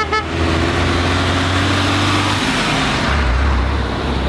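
A medium lorry with an aerial work platform on the back drives past close by, its diesel engine droning and dropping slightly in pitch as it passes, with a rush of tyre and wind noise peaking about three seconds in. A car's engine and tyres follow behind it. Two short high pips sound right at the start.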